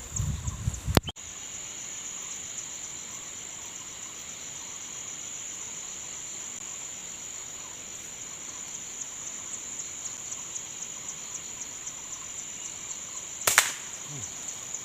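Insects, cicadas or crickets, chirring steadily in a high, finely pulsing drone. A single sharp crack sounds near the end.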